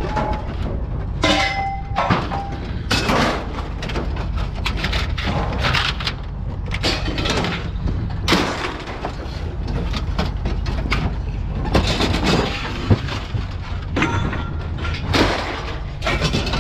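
Steel shelving being shifted and dropped, with repeated metal clanks and bangs at irregular intervals over a steady low hum.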